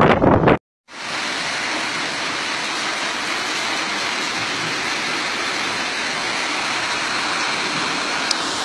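Gusty wind buffeting the microphone, cut off abruptly about half a second in; after a moment's gap, heavy rain pouring down in a steady, even hiss.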